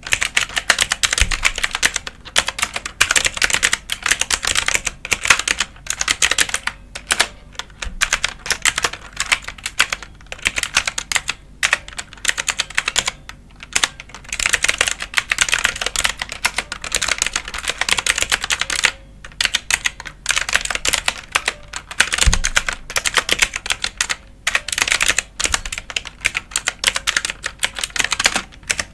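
Computer keyboard being typed on: fast runs of key clicks and clacks, broken now and then by brief pauses.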